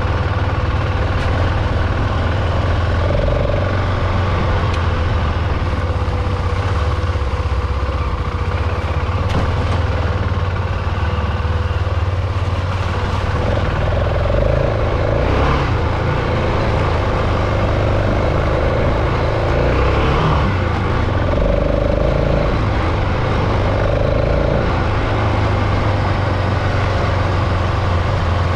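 BMW F 650 GS Dakar's single-cylinder engine running steadily as the bike rides along a dirt track.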